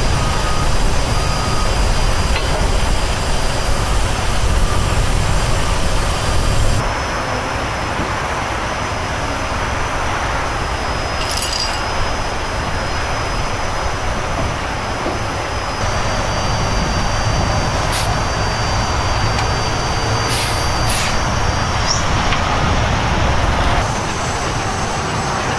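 Steady low rumble of heavy diesel trucks running amid freeway traffic noise, with a few short, sharp high-pitched hisses or squeals partway through.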